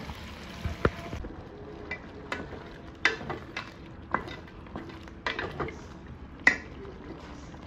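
Wooden spoon stirring chunks of pork in a stainless steel pot, knocking against the pot's sides at irregular intervals, the loudest knock about six and a half seconds in. Underneath, the meat sizzles steadily in the pot.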